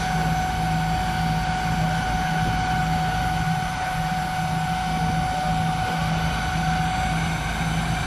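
Firefighting helicopter running, with a steady high turbine whine over a low pulsing rotor beat.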